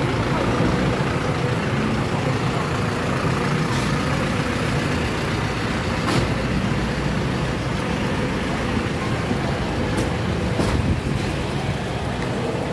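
Steady low rumble of road vehicles, with a few faint clicks over it.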